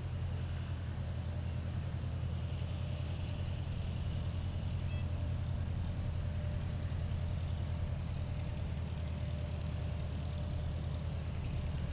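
Spezio light aircraft's propeller engine running steadily at low taxi power: a constant low drone with a fast flutter, heard from a distance.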